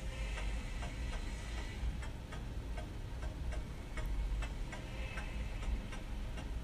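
Faint, irregular small clicks, a few a second, over a low steady rumble.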